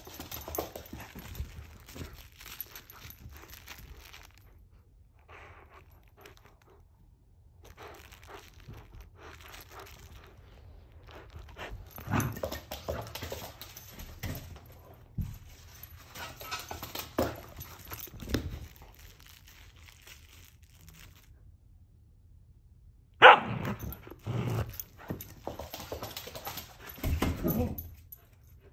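Great Pyrenees puppy barking in short bursts while playing. The loudest bark starts sharply about three-quarters of the way through.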